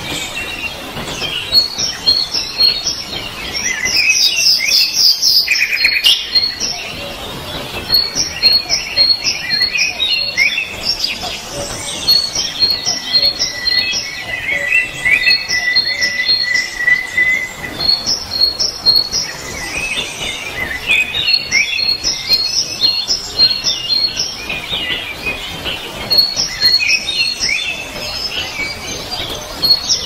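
Songbirds singing and chirping: quick series of short high chirps repeat throughout, with a steady trill held for several seconds in the middle.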